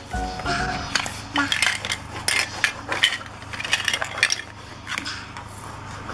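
Hard plastic toy fruit and vegetable pieces clattering and knocking against each other and a plastic basket as they are handled, a string of irregular clicks and clacks.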